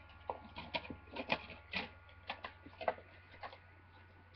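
Plastic DVD cases and discs being handled, giving a dozen or so irregular clicks and rattles as loose discs are fitted back onto the case hubs.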